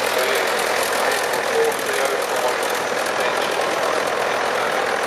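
Vintage tractor's Perkins diesel engine running steadily as the tractor drives slowly past, with other tractor engines idling behind it.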